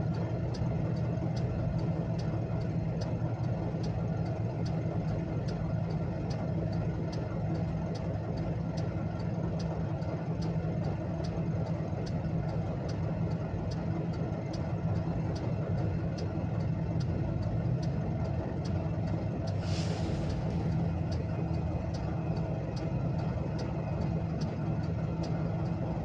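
Car hazard-light flasher relay clicking steadily, about one and a half clicks a second, heard inside the cabin over the engine idling. A short hiss about twenty seconds in.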